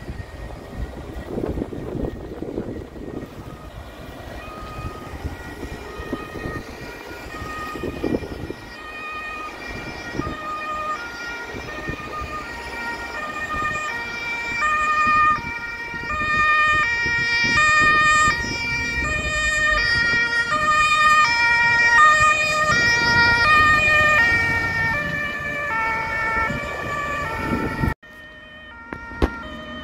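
Emergency vehicle's two-tone siren (German Martinshorn), alternating steadily between a high and a low note and growing louder as the vehicle approaches, over road and engine noise. The sound drops away abruptly near the end.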